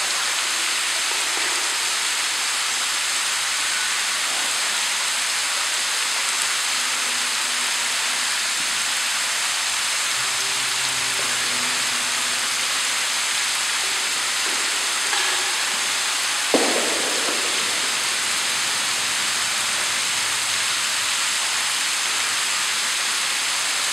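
Steady hiss, even and unbroken, with a single sharp click about two-thirds of the way through.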